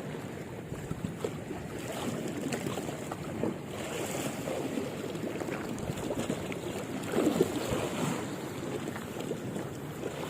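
Small waves washing and lapping in a steady, irregular wash of water noise, with wind buffeting the microphone.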